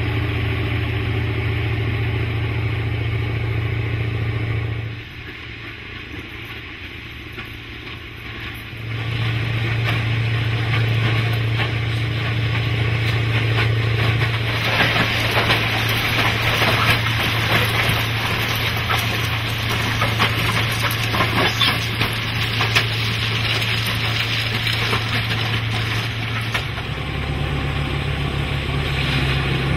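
Diesel engine of a railway track tamping machine running with a steady low hum, briefly quieter about five seconds in. Through the middle stretch a dense crackling and crunching of ballast stone rises over it as the machine works the track bed.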